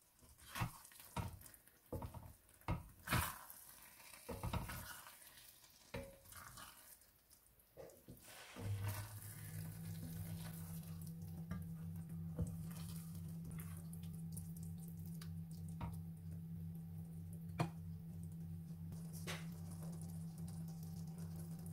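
Wooden spoon stirring thick, wet risotto in an enamelled pan, scraping and knocking against the pan for about eight seconds. Then a steady low hum sets in under the simmering rice, with a few sharp clicks.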